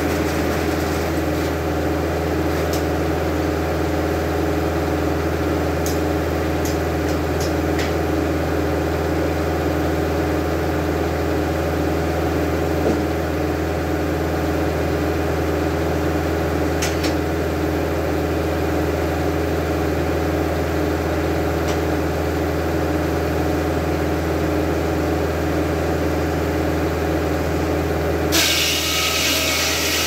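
Antique Belsaw circle sawmill running steadily, its drive and blade giving a constant hum with a few faint clicks. Near the end a loud hiss suddenly joins in.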